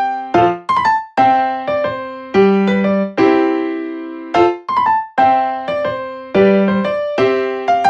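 Background music: a light piano tune of repeated chords and short melodic phrases.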